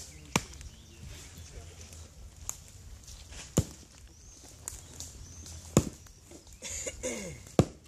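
Large knife chopping into a short log of wood: sharp wooden knocks about one to two seconds apart, with the loudest strikes coming a little over two seconds apart.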